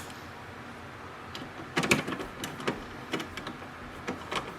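Light, irregular clicks and taps of hard plastic parts as a replacement power supply unit is seated in an HP DeskJet 2700 printer's housing and its screws are driven in by hand, with the loudest pair of clicks a little under two seconds in.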